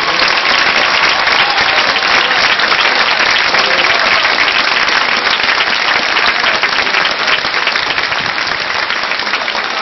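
Large crowd applauding, a dense steady clatter of many hands that eases a little near the end.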